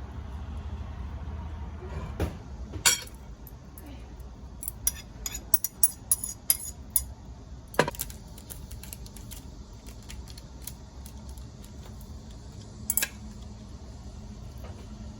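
Cutlery and dishes clinking: a string of sharp taps and clinks, densest between about two and eight seconds in, with one more pair near the end.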